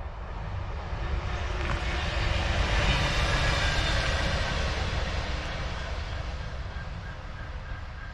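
Class 66 diesel-electric locomotive passing on its own with no wagons, its two-stroke V12 diesel engine running with a heavy rumble. The sound builds to its loudest about three seconds in, then fades as the locomotive draws away.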